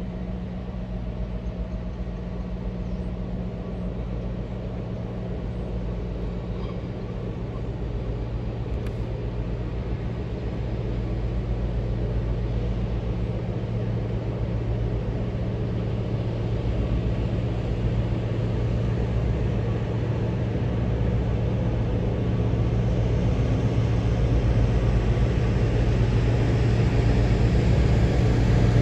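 Class 60 diesel locomotive's Mirrlees engine running as it hauls a freight train, a steady low drone growing gradually louder as it approaches.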